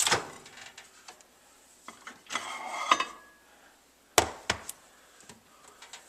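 A microwave oven door being opened and a can of peanuts being handled. There is a sharp click at the start, a short rattle and scrape a couple of seconds in, then three sharp knocks about four seconds in as the can is taken out and set down.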